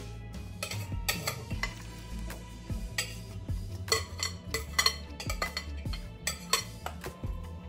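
A utensil scraping and clinking against a glass bowl as seasoned marinade is scraped out and poured, in a series of short, sharp, irregular clinks.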